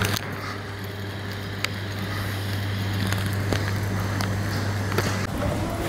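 A steady low mechanical hum over a background of street noise, with a few faint clicks; the hum cuts off about five seconds in.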